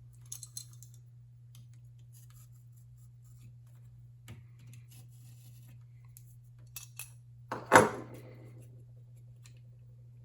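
Small hard parts and tools being handled: scattered light clicks and scrapes, then one louder clunk that rings briefly about three-quarters of the way through. A steady low hum runs underneath.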